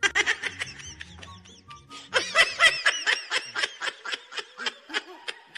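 Edited-in laughing sound effect: a fast string of short, high giggles, several a second, with background music underneath during the first half.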